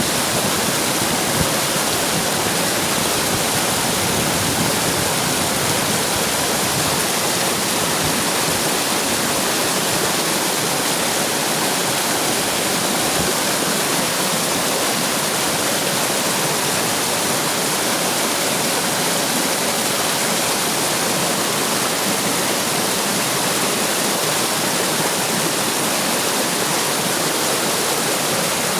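Running water splashing and rushing steadily over rocks, an even, unbroken water noise.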